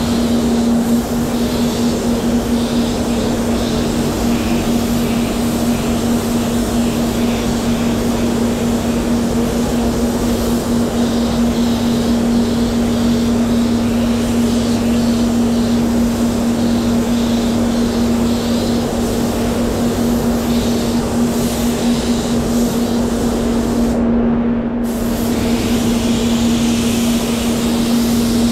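SATAjet X5500 compressed-air spray gun hissing in passes as water-based base coat and then clear coat are sprayed onto a car door, over a steady low hum. The high hiss cuts out for about a second near the end, then resumes.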